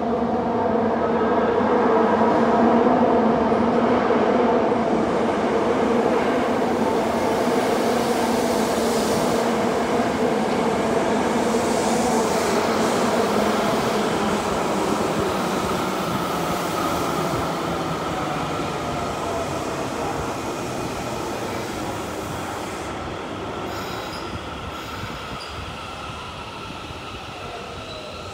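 Osaka Midosuji Line subway train pulling into the platform and slowing to a stop, wheels on rail and running gear giving a loud rumble with several steady tones. It is loudest a few seconds in and fades as the train slows, with a falling whine near the end as it comes to a halt.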